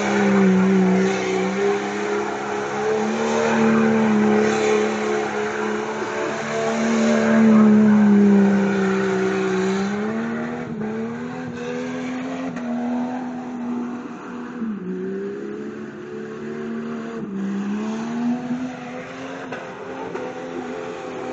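Car doing donuts: engine held at high revs, its pitch dipping and rising every few seconds as it circles, with spinning tyres hissing and scrubbing, heaviest in the first half.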